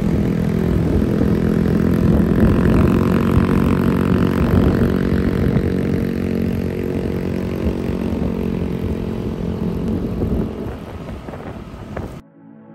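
A motor vehicle engine running steadily, with a low hum and rumble, cutting off abruptly near the end.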